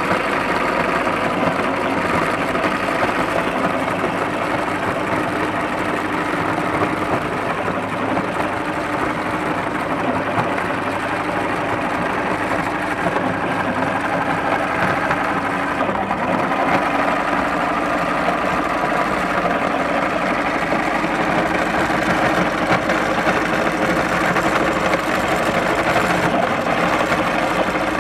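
Motor-driven cast-iron meat grinder running steadily, its auger grinding bread into crumbs that fall through the cutting plate. The pitch dips briefly about halfway through.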